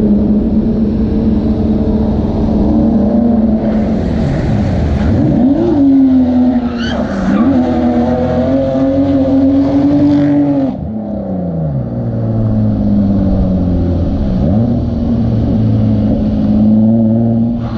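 A car's engine revving hard during a drift, its pitch climbing and dropping as the throttle is worked, with tyre noise in the middle of the run. About eleven seconds in the revs fall to a low, steady note, then pick up again near the end.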